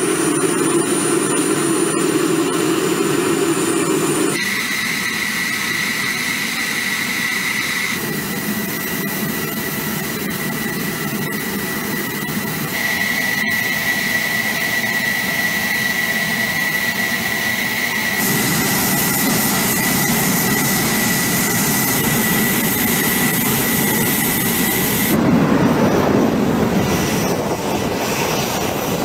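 F-16 fighter jet's engine running on the ground at idle: a steady high whine over a rushing noise, the sound changing abruptly several times.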